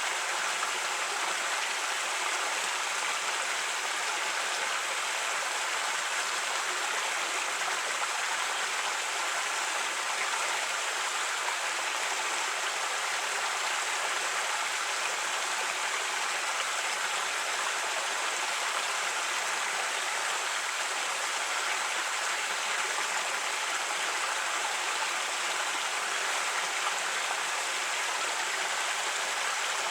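Creek water running over rocks, a steady rushing babble that does not change.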